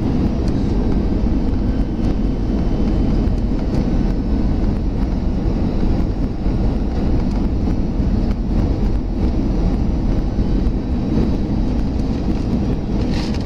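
Cabin noise inside an Airbus A320 descending on approach to land: a steady rumble of the jet engines and airflow heard through the fuselage.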